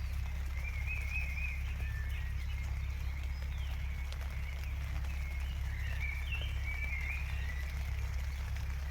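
Birds singing warbling, chirping phrases over a steady low rumble and the patter of rain.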